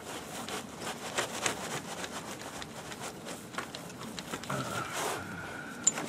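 Scattered light knocks, clicks and scrapes of hands and tools working on metal parts, with a faint steady high tone near the end.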